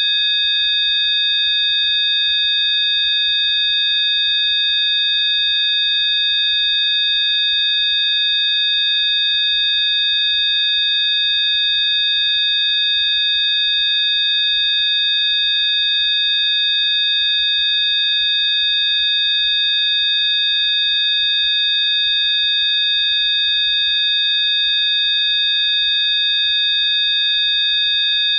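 Rife frequency audio track: several steady electronic sine tones sounding together at fixed high pitches, unchanging throughout.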